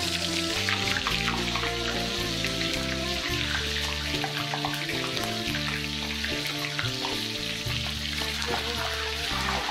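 Whole quail deep-frying in hot oil in a cast-iron kazan: steady sizzling and crackling, with background music.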